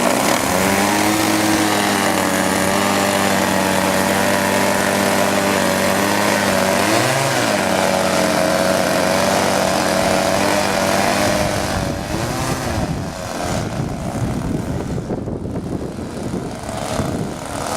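Two OS 46 two-stroke nitro glow engines of a twin-engine radio-controlled model plane running at high revs, their pitch wavering, with a brief dip and recovery about seven seconds in. From about twelve seconds in the sound turns fainter and rises and falls, as of the plane flying farther off.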